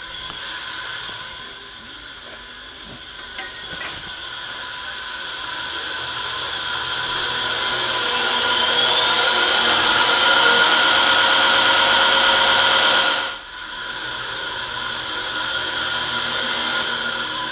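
84 Engineering 2x72 belt grinder running free on its first test run: the abrasive belt hisses as it travels over its wheels, with a steady motor whine underneath. It grows louder over several seconds, dips briefly about three-quarters of the way through, then runs on.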